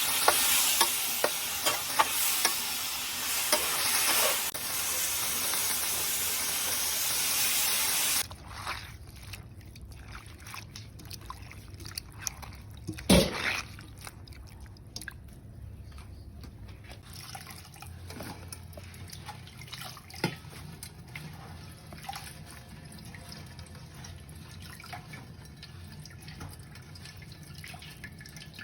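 Water running hard from a tap into a sink, shut off abruptly about eight seconds in. After that come quieter drips and small knocks and clinks of things being handled in the sink, with one louder knock a few seconds after the tap stops.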